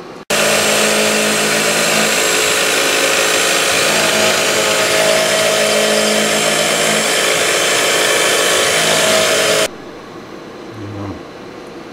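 Small Syil X3 CNC milling machine cutting aluminium with an end mill under flood coolant: a loud, steady spindle and cutting noise with several held tones. It starts abruptly and cuts off abruptly about two seconds before the end, leaving a low steady hum.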